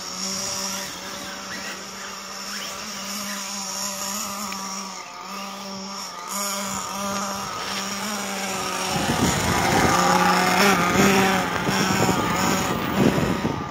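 Radio-controlled model cars running on a snowy track, their motors giving a whine that rises and falls with the throttle. About nine seconds in the cars come close and it gets much louder, with a rough, uneven noise of tyres churning through snow.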